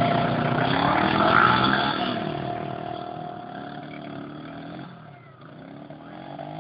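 ATV engine revving as the quad pulls away on a dirt trail, its pitch rising and falling with the throttle. It fades as the machine moves off, dipping lowest about five seconds in, then grows louder again near the end.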